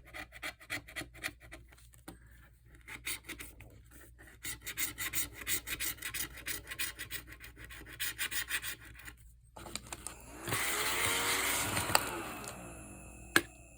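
Scratch-off lottery ticket being scratched: quick, repeated scraping strokes across the coating, stopping briefly about nine and a half seconds in. A louder rushing swish follows for about two seconds, then a single sharp click near the end.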